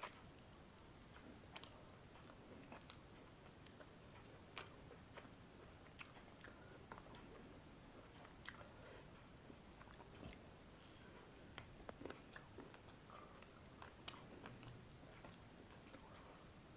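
Faint chewing of a person eating a meal, with scattered small sharp clicks at irregular intervals.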